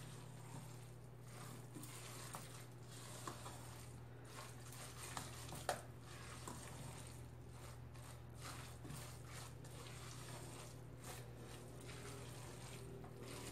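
Faint, irregular soft sounds of a hand kneading a moist rice and fish mixture in a stainless steel bowl, with a slightly louder tick about halfway through, over a steady low hum.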